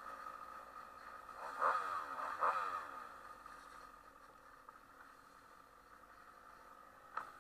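An engine revving briefly twice, each rev falling away in pitch, over a steady drone. Two sharp knocks come near the end.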